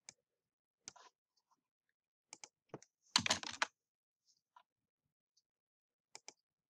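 Scattered keystrokes and clicks on a computer keyboard and mouse, with a quick, louder run of keystrokes about three seconds in.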